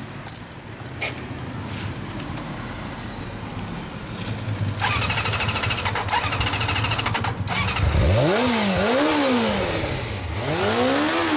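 Kawasaki ZRX400 inline-four with an aftermarket exhaust starting up about halfway in, then revved three times, each rev rising and falling in pitch, the last one longest.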